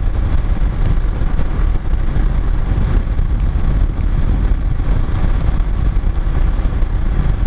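Steady wind buffeting on the microphone over the rumble of a BMW F750GS motorcycle riding at speed on a wet road.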